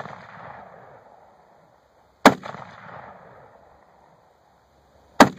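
Two rifle shots about three seconds apart, one about two seconds in and one near the end, each followed by a long rolling echo that dies away; the echo of an earlier shot trails off at the start.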